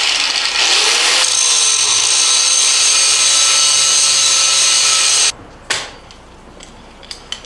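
Handheld angle grinder starting up and grinding metal, a loud steady whine, for about five seconds before it switches off abruptly. A couple of light metal knocks follow near the end.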